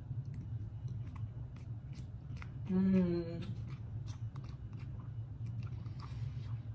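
A person chewing a soft bite of mille-crêpe cake: scattered small wet mouth clicks and smacks, with one short hummed "mmm" of enjoyment about three seconds in, over a steady low hum.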